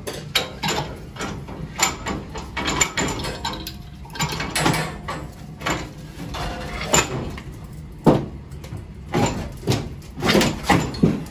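Pipe wrench gripping and turning threaded steel pipe on an old gas boiler: irregular metal clanks, knocks and scrapes, with a few louder knocks in the second half.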